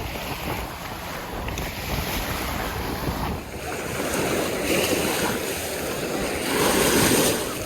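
Lake waves breaking and washing in at the shoreline, surging louder twice, with wind buffeting the microphone.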